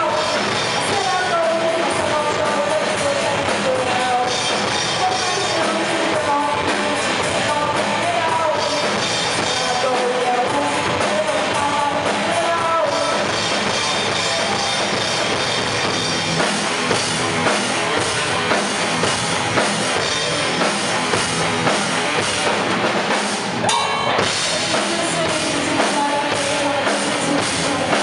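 A live rock band playing: a woman singing over electric guitars, bass guitar and a drum kit. The sung line is clearest in the first half; later the drums hit steadily, with a brief drop about two-thirds of the way in.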